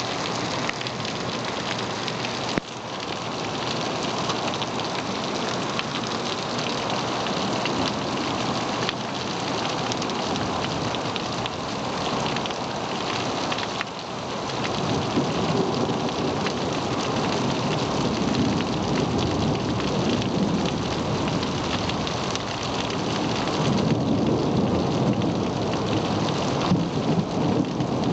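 Rain falling steadily in a thunderstorm. Low rumbles of thunder swell up around the middle and again near the end.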